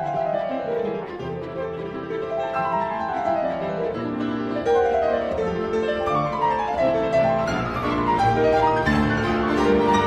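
Instrumental background music with repeated falling runs of notes over sustained chords, growing louder.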